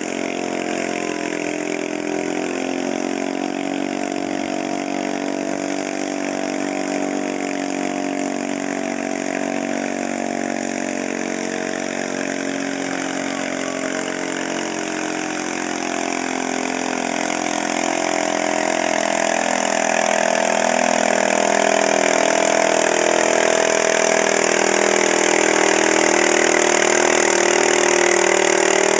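Modified John Deere garden pulling tractor's small engine running hard while pulling a weight sled. It grows steadily louder from a little past halfway as it works harder down the track.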